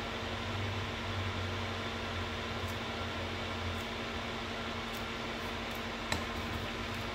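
Steady fan-like mechanical hum with a low drone and a faint even tone. A brief click about six seconds in as the soldering iron tip is pushed into its brass-wool cleaner.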